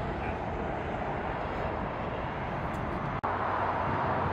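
Jet engines of a four-engine airliner climbing away, a steady rumble. About three seconds in, the sound drops out for an instant and gives way to a brighter, steady rumble of distant airport noise.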